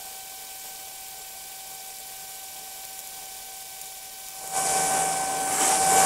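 TIG welding arc on mild steel: a steady faint hiss with a thin hum. About four and a half seconds in, a louder broad hiss takes over.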